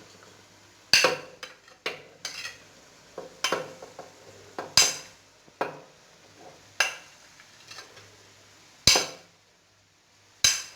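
Kitchen utensil knocking and clinking against dishes and the blender jar: about eight separate sharp knocks, irregularly spaced, as steamed dried figs are put in the blender.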